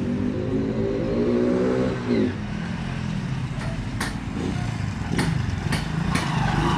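Single-cylinder Hero Honda motorcycle engine running with its air filter removed, which changes its intake sound: it revs up over about two seconds, drops back sharply, then runs steadily at a lower speed.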